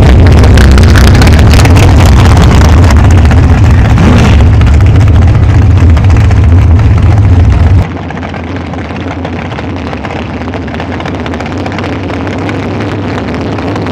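Supercharged dragster engine running at high revs during a burnout, very loud, then dropping sharply to a much lower, steady running level about eight seconds in as the car is backed up.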